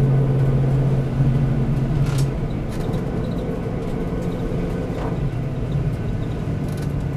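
V8 Supercar's engine heard from inside the cabin, running at low revs as the car rolls slowly at about 45 km/h. A steady drone drops away about two seconds in as the throttle comes off, leaving a lower, rougher rumble.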